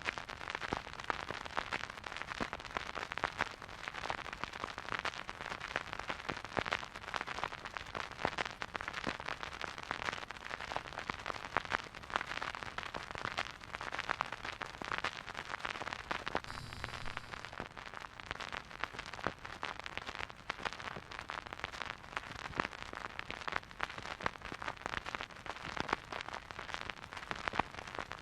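Surface noise of a silent vinyl record groove playing: dense, steady crackle and pops over a soft hiss, from dust and wear in the groove.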